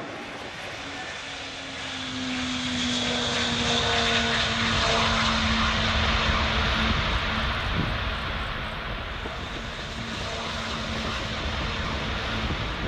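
Antonov An-225 Mriya's six turbofan engines at take-off thrust as the jet lifts off and climbs: a steady jet roar with a low hum sliding slowly down in pitch. The roar grows louder about two seconds in.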